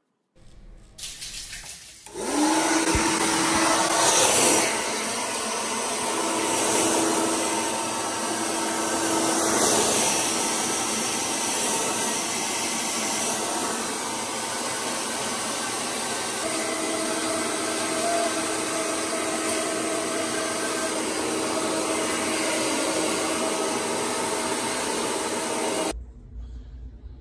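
Handheld hair dryer blowing: it switches on about two seconds in, runs steadily as a loud rush of air with a faint motor whine, and cuts off near the end.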